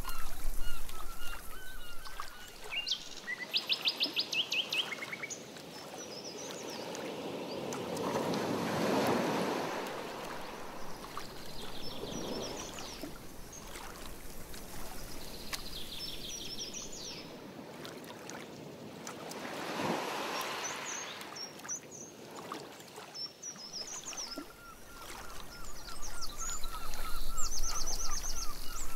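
Birds calling over a lake: a chorus of short, rapidly repeated calls at the start and again near the end, with a songbird's quick high trills in between. Twice, about eleven seconds apart, a canoe paddle stroke makes a soft swell of swishing water.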